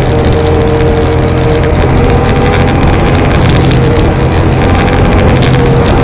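ATV engine running steadily at cruising speed on a paved road, heard close up from the quad's front rack.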